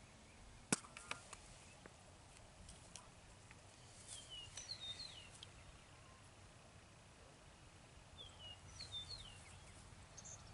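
Faint outdoor quiet with a bird chirping in two short runs of quick falling notes, around halfway and again near the end. A single sharp click about a second in is the loudest sound.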